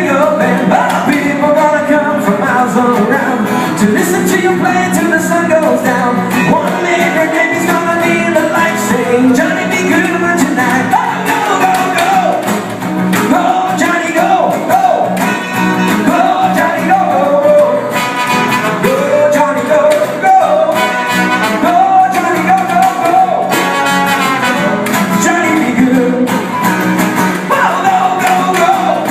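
A song with a lead voice singing over instrumental accompaniment, guitar among the instruments, playing continuously at a steady, loud level.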